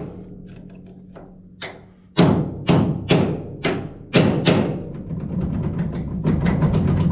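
Ball-peen hammer striking a punch made from a ground-down bolt, driving a stuck double roll pin out of a steel corn head row unit. After a couple of seconds of faint tapping come about six hard, ringing metal blows, then a run of lighter, quicker taps near the end.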